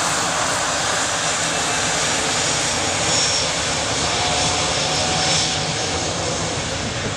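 Twin jet engines of an easyJet Airbus A320-family airliner running at taxi power as it rolls past: a steady loud rush with a faint high whine.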